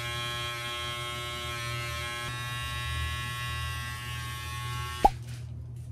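Electric hair clippers running with a steady buzz while trimming close around the ear and back of the head. The buzz cuts off suddenly with a click about five seconds in.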